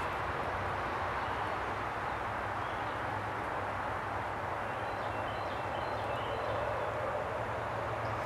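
Steady outdoor background noise: an even hiss over a low hum, with a few faint, short, high chirps about halfway through.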